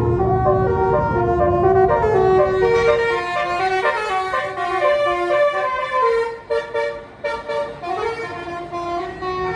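Tour bus's basuri telolet musical horn playing a tune of stepped notes, over the low rumble of the bus's engine, which fades after the first two seconds or so. Later the notes break up into short toots.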